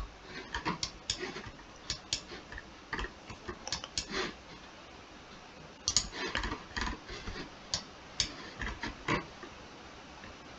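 Computer mouse clicking and its scroll wheel ticking: irregular single clicks and short quick runs of clicks.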